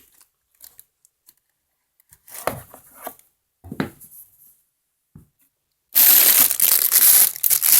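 Packaging being torn open and crumpled during an unboxing: a couple of short rustles, then loud continuous tearing and crinkling from about six seconds in.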